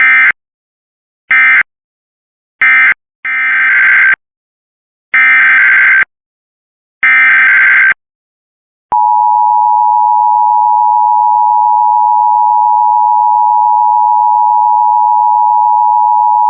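Emergency Alert System signalling tones: three short electronic data bursts (the end-of-message code closing one test), then three longer data bursts (the header opening the next test), then the steady two-tone EAS attention signal, starting about nine seconds in and sounding for about eight seconds.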